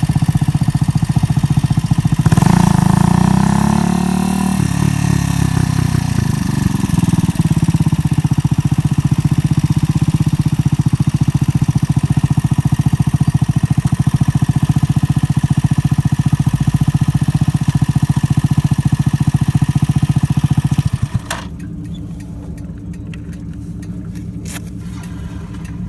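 125cc motorcycle engine running on the move, with wind rushing past; about two seconds in the engine note dips and climbs again, as at a gear change. About 21 seconds in the wind noise stops and the engine drops to a quieter, lower idle, with a few sharp clicks.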